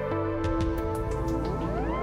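Background music: sustained synthesizer chords, with rising sliding tones that come in about a second and a half in.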